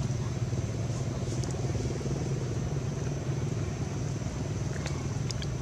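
A steady low motor rumble, like an engine idling, with a thin steady high whine above it and a few faint clicks near the end.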